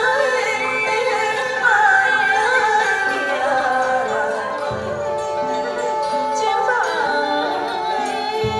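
Traditional Vietnamese water puppet theatre music: a singing voice with sliding, bending pitches over traditional instruments, with low drum strokes about halfway through and near the end.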